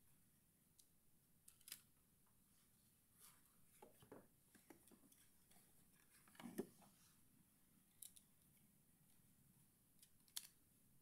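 Faint, scattered clicks and light knocks of a stack of game tiles being handled and set into a cardboard box insert, the loudest knock about six and a half seconds in.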